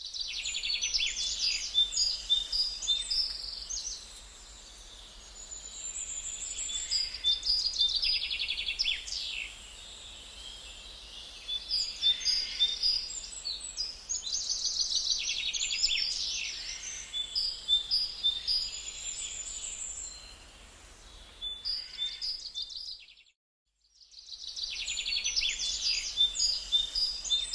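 Many small birds chirping and twittering together in a dense morning chorus, their quick repeated chirps overlapping. About 23 seconds in the sound cuts out for about a second, then the chirping starts again.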